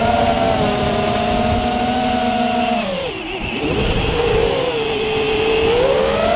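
Freestyle FPV quadcopter's brushless motors and propellers whining in flight. The pitch drops sharply about three seconds in as the throttle is cut for a dive or flip, stays lower for a while, then climbs back as power comes up again near the end.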